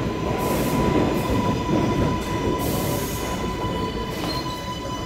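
New York City subway 4 train cars rolling along the platform and slowing as they pull into the station. Wheels rumble on the rails under a steady high whine, with two short hisses, about half a second in and again about two and a half seconds in.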